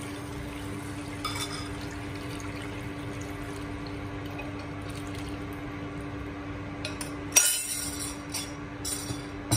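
Milk pouring from a glass bowl into a nonstick pan, over a steady hum from the induction cooktop. About seven seconds in comes a sharp glass clink, followed by a few lighter clinks, as the spoon knocks against the glass bowl.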